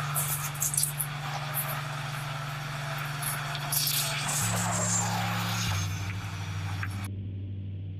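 Outdoor sound from a doorbell camera: a steady rushing noise with a few knocks in the first second. Under it runs a low droning background music bed that shifts pitch twice. The camera sound cuts off about seven seconds in, leaving only the drone.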